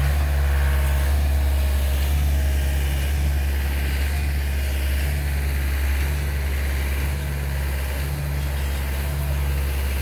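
Concrete mixer truck and trailer-mounted concrete pump running steadily: a low engine drone with a pitched hum that dips briefly every couple of seconds.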